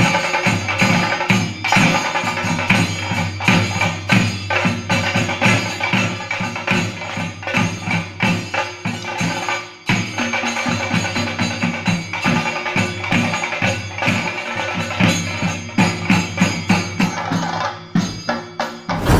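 Kerala temple percussion ensemble of drums and cymbals playing a fast, dense rhythm, with a brief dip about ten seconds in before it picks up again.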